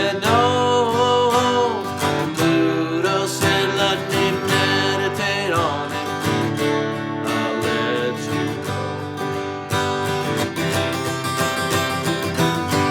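Instrumental passage of a folk-country song: strummed acoustic guitar, with a wavering melodic note held in the first second or so.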